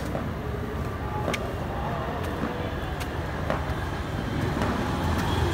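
Steady low rumble of outdoor night ambience, with a few faint clicks and faint distant voices.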